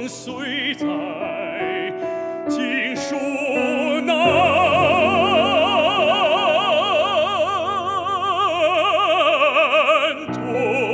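Male operatic baritone singing a slow Chinese art song with wide vibrato: a few short phrases, then one long held note from about four seconds in that stops suddenly about ten seconds in.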